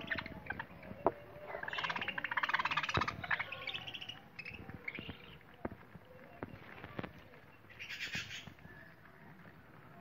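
Budgerigars chattering as they feed, a dense burst of rapid warbling chatter from about two to four seconds in and a shorter burst around eight seconds, over scattered sharp clicks of beaks pecking at seed.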